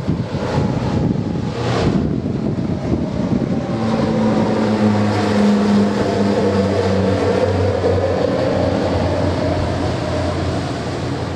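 Propeller aircraft engines droning as a formation flies over: a steady low hum with slowly sweeping higher tones. Wind buffets the microphone in the first couple of seconds.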